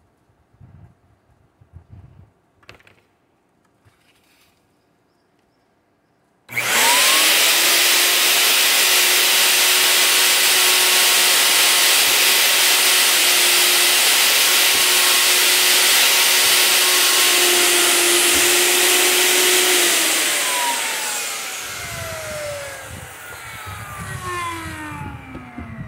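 Minli plunge router switched on about six seconds in, after a few faint handling knocks: the motor spins up with a quick rising whine and runs steadily at full speed, loud. About twenty seconds in it is switched off and winds down, its whine falling in pitch over the last few seconds.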